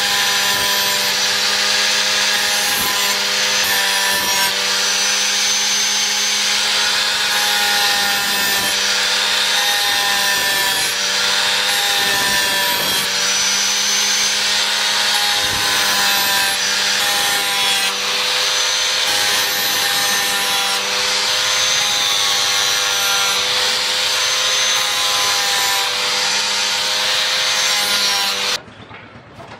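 Electric angle grinder with an abrasive disc grinding a steel knife blade forged from bearing steel: a steady motor whine under a harsh, continuous grinding hiss. It breaks off abruptly near the end.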